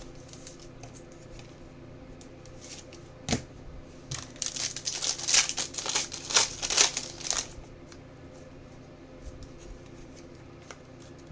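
Trading cards and their plastic packaging being handled: a single sharp click about three seconds in, then a few seconds of crisp crinkling and rustling.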